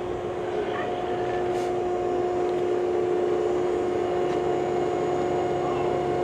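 Hydraulic pump of an Eli Bridge Double Eagle Ferris wheel running with a steady whine while its two telescoping cylinders raise the tower.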